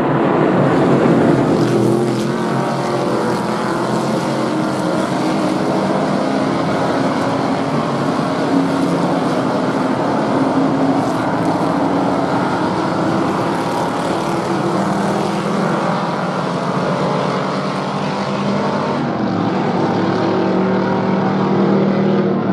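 A pack of historic Trans Am race cars with V8 engines running hard on track, making a dense, loud, steady engine noise with many cars overlapping.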